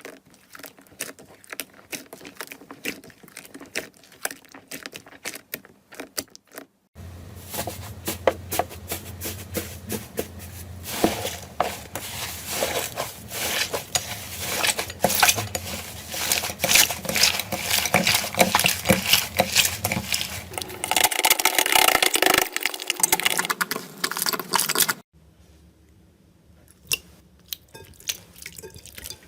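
Slime being squeezed, poked and stretched by hands, with many small clicks, pops and crackles. It is quieter for the first few seconds, much louder and denser in the middle, and quiet again near the end, with sudden changes between the parts.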